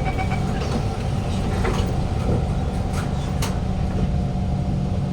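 Interior noise of a Kawasaki Heavy Industries C151 train carriage: a steady low hum with a steady mid-pitched tone over it and a few sharp clicks.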